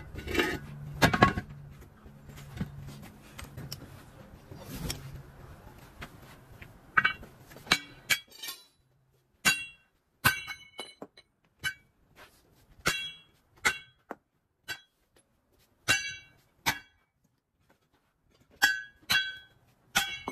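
Sledgehammer striking a steel truck wheel rim seated in a tyre: a dozen or so ringing metallic clanks at irregular intervals, starting about seven seconds in. A few heavy knocks come near the start.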